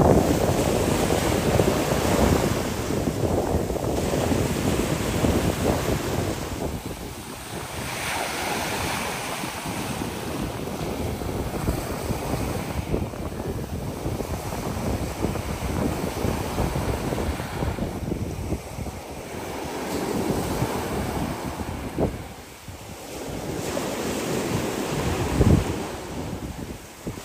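Sea waves surging and breaking on a rocky shore, with wind buffeting the microphone; the noise swells and ebbs every few seconds, with a brief loud thump near the end.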